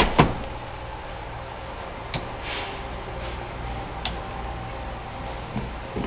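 Hard bed-cover panel of a 2005 Chevrolet Avalanche being handled by hand: two sharp clicks at the start, then a few quieter clicks and light rustles over a steady low hum.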